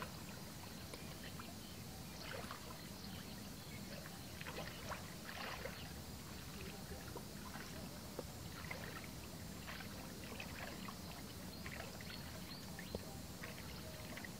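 Shallow muddy water sloshing and splashing in small irregular bursts as someone wades and feels through it by hand, over a steady low background noise.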